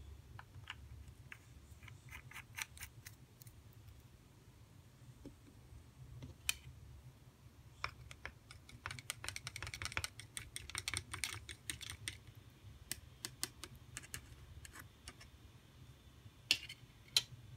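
Light plastic clicking: a plastic stirring stick ticking quickly against the sides of a thin plastic cup of water as colouring is stirred in, with scattered clicks before it and two sharper clicks near the end.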